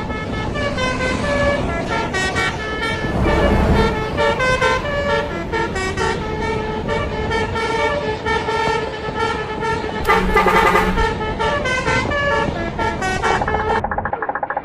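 A bus's telolet basuri multi-tone musical horn playing a quick tune of stepping notes, with a louder noisy burst about ten seconds in.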